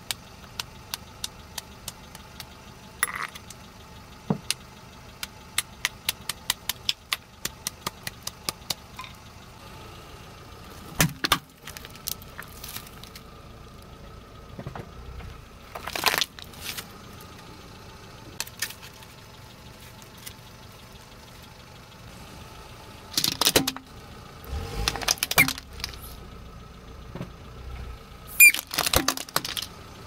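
A hammer striking naphthalene mothballs on asphalt: a quick run of sharp taps, about three a second, for the first nine seconds. Then a car's tyre rolls over and crushes objects, a plastic flower among them, with louder crunches and cracks at about 11, 16, 23 to 26 and 28 seconds in. A car engine runs steadily underneath.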